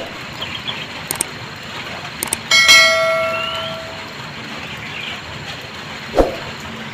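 Steady hiss of light drizzle. About two and a half seconds in, a single loud metallic clang rings out and dies away over a second or so, followed by a short rising chirp. A dull thump comes near the end.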